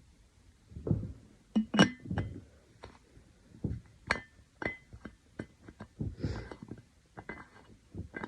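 Glass clinking and knocking: about a dozen irregular sharp clinks, several with a short ring, mixed with duller low knocks.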